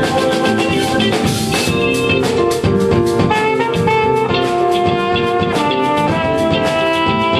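Live jazz band playing: a trumpet carries a melody of long held notes over guitar, bass, drum kit and keyboard, with the drums keeping a steady beat.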